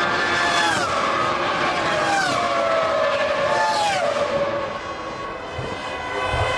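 Three Formula One V10 race cars going past one after another, about a second and a half apart, each high-pitched engine note dropping in pitch as it passes; a steadier engine note carries on near the end.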